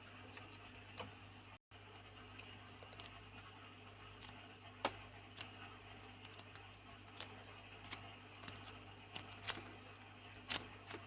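Light foam modelling clay being squeezed and handled close to the microphone: soft, irregular clicks and crackles, a few louder ones about five seconds in and near the end, over a steady low hum.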